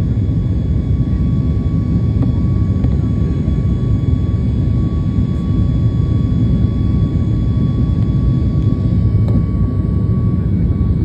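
Passenger aircraft cabin noise during the climb after takeoff: the engines and rushing air make a loud, steady low rumble, with a thin steady whine above it.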